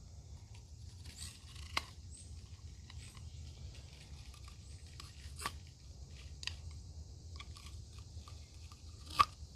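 Knife blade cutting and tearing through material in a hard-use test: scattered crackling snaps over a steady low hum, the sharpest snap near the end.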